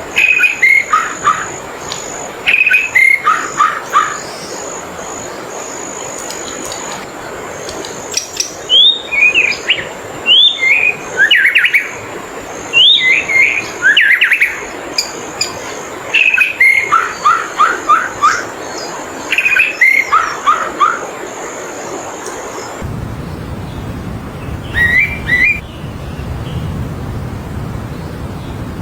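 A wild songbird singing loud short phrases of quick descending notes again and again, with pauses of a second or two between phrases. A steady high thin tone sounds behind it and stops near the end.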